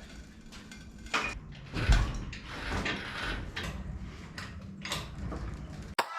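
Irregular metal clanks, clicks and creaks of a steel truck cab being lifted off its frame on an engine hoist, with one heavy low thump about two seconds in.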